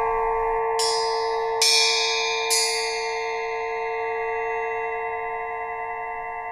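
Quartz crystal merkaba, a star-shaped frame of clear quartz tubes hung from a cord, struck three times with a small striker, about a second apart. It rings with several bell-like tones at once that hold and slowly fade.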